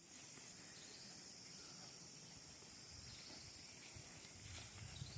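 Faint, steady high-pitched drone of insects, with a few soft low knocks.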